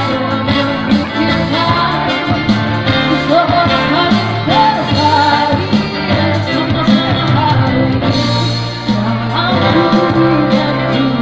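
Live street busker band playing a song: a singer's voice carries the melody over guitars and a steady beat.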